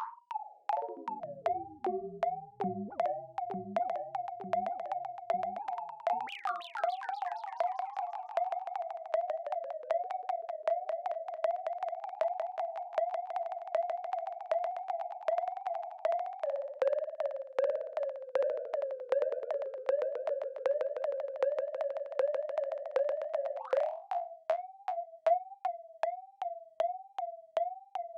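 Synthesized robot beeps and chirps, R2-D2-style: a rapid string of short pitched blips warbling around one pitch, with a falling pitch glide in the first two seconds.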